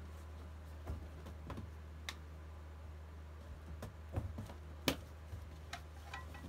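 Scattered light clicks, knocks and rustles of packaged items being handled and shifted inside a cardboard box, with one sharper click about five seconds in, over a steady low hum.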